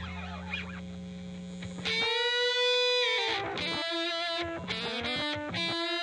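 Electric guitar played through a harmonic percolator fuzz pedal: distorted single notes with long sustain and slides between them, the loudest a held note about two seconds in.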